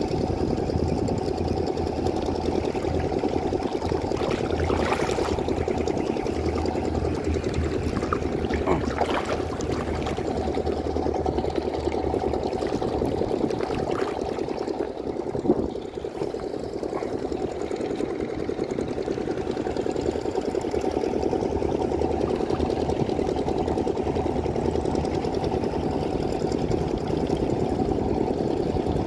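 A steady mechanical drone with a low hum, like a running motor, with a few faint clicks.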